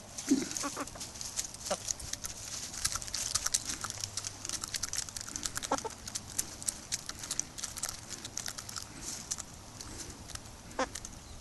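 Chickens eating mealworms: a fast, irregular patter of beak pecks, with a few short clucks now and then.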